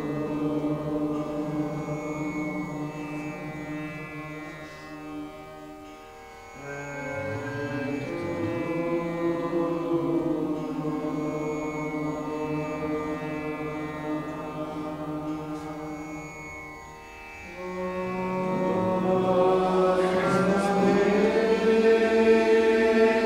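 Slow melodic devotional mantra chanting, held on long notes that step from pitch to pitch. It dips twice, then swells louder and fuller from about eighteen seconds in.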